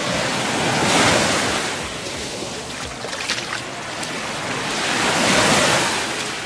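Small Gulf of Mexico waves breaking and washing up the sand: the surf rises and falls twice, about four and a half seconds apart.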